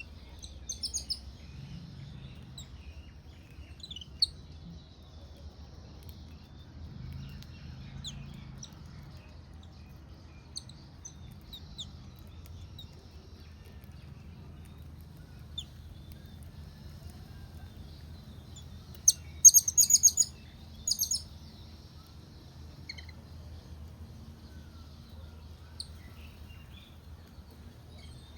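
Small birds chirping in short, scattered high calls, with a loud quick run of chirps about two-thirds of the way through. A faint steady insect trill and a low background rumble sit underneath.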